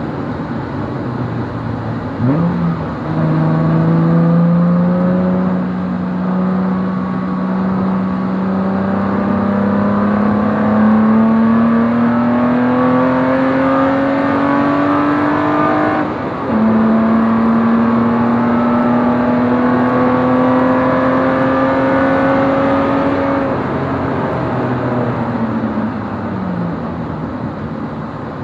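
BMW race car's engine heard from inside the cockpit, pulling under load with its pitch climbing slowly through a long gear. About sixteen seconds in, the note drops sharply for an upshift and then climbs again. Near the end the revs fall away and then rise quickly once more.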